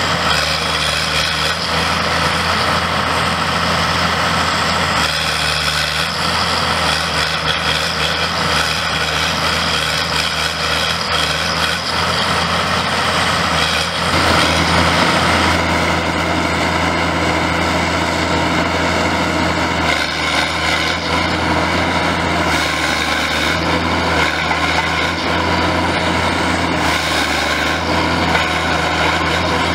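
Diesel engine of a Timberjack 1070 wheeled forestry harvester running steadily under load while the machine drives and works its boom. The engine note shifts about halfway through.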